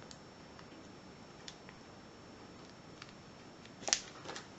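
Faint handling noises as lock-picking tools are moved about in their package: a few small clicks, with one louder click about four seconds in.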